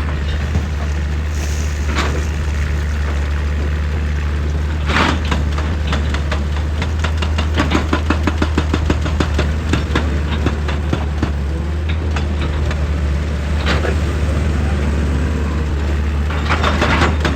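Excavator's diesel engine running steadily under load, with scattered knocks and grinding scrapes as the bucket digs into rock and earth, clustered about two, five, eight, fourteen and seventeen seconds in.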